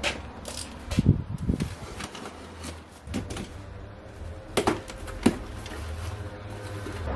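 Cardboard parcel handled on a motorcycle seat: scattered light knocks, taps and rustles, with the sharpest knocks about one, one and a half, three, four and a half and five seconds in.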